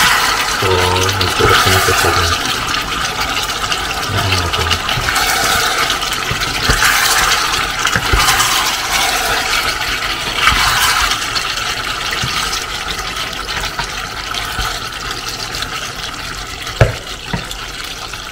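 Thick pork adobo sauce sizzling and bubbling as it reduces in a nonstick pot, stirred with a wooden spatula. There is a single sharp knock near the end.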